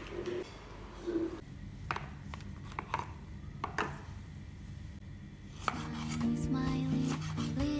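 Kitchen knife cutting raw chicken breast on a wooden cutting board: a few separate sharp knocks of the blade against the board, roughly a second apart. Music with plucked notes comes in near the end.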